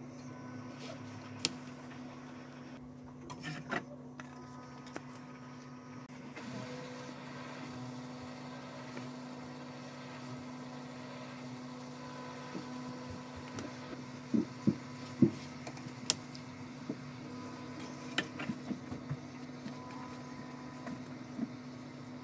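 A steady low electrical hum, with a few sharp taps of a spoon and spatula against a non-stick frying pan, clustered a little past halfway and a few more soon after.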